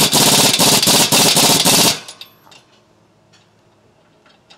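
Air impact wrench running in a rapid, loud hammering burst, tightening the nut on a coilover strut-to-steering-knuckle bolt, and stopping about two seconds in. A few faint clicks follow.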